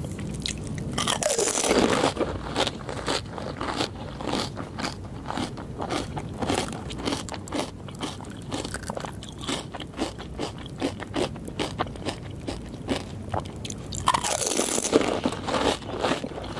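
Crisp pani puri shells being bitten and chewed: a loud crunching bite about a second and a half in and another near the end, with many quick crackling chewing crunches in between.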